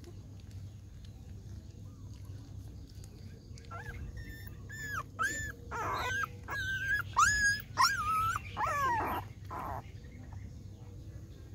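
Young puppies whimpering and yelping in a run of short, high-pitched cries, some falling in pitch. The cries start about four seconds in and stop shortly before the end.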